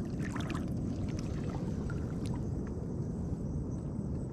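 Shallow seawater sloshing and lapping around a wader's legs: a steady low rush with scattered small splashes and clicks.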